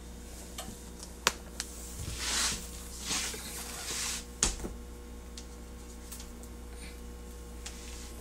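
A spice shaker being handled: a few sharp clicks, the first two close together a little over a second in and one more about four and a half seconds in, and three short, soft swishes of the powder being shaken out. The shaker is most likely onion powder going into the baked beans.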